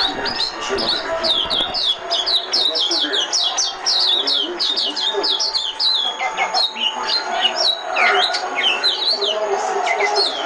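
White-eye (vành khuyên) singing a fast twittering song: a long run of quick, high, downward-sliding notes, breaking into more varied notes over the last few seconds.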